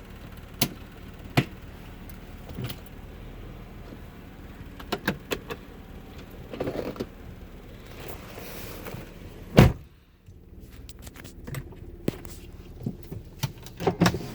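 Sounds in and around a car: scattered sharp clicks and knocks over a steady low hum, then one loud thump a little under ten seconds in, after which the hum drops away and more light clicks follow.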